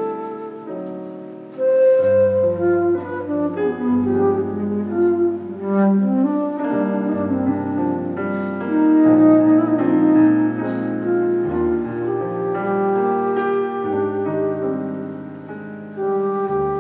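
Flute and digital stage piano playing an instrumental duet of Brazilian music: a flute melody over piano chords, with low bass notes struck every few seconds.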